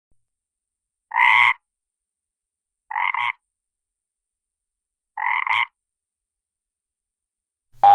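Three AI-generated frog croaks made with Adobe Firefly, each about half a second long, about two seconds apart. A cartoon spring boing sound effect starts just at the end.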